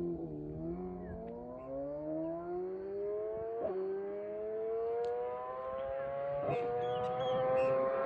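BMW S1000RR's inline-four engine pulling hard, its note climbing steadily in pitch, with a brief dip about every three seconds as it shifts up a gear.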